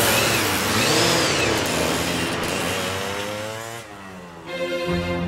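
Several dirt-bike engines revving, their pitch rising and falling, then fading away after about three and a half seconds. Slow, sad music begins near the end.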